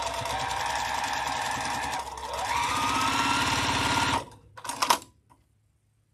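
Electric sewing machine stitching a seam through pieced fabric. It eases off about two seconds in, then speeds up with a rising whine, and stops after about four seconds. A short, loud burst of noise follows just under a second later.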